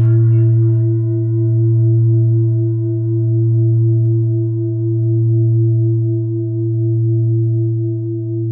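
Background music: a sustained, singing-bowl-like low drone with a few ringing overtones, wavering slowly in loudness without dying away. A singing voice trails off in the first second.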